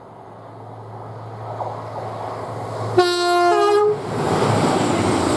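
TransPennine Express class 185 diesel multiple unit sounding its two-tone horn as it approaches: a short low note stepping up to a higher one, under a second in all. The train's rumble grows and becomes loud as it passes close by.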